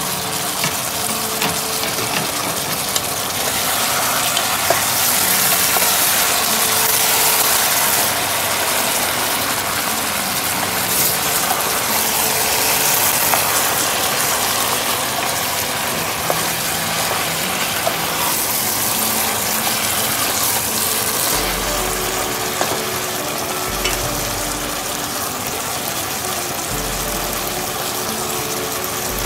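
Chicken pieces and lemongrass sizzling in their own juices in a stockpot, a steady frying hiss, with a wooden spoon stirring them now and then. A few low bumps come in the last third.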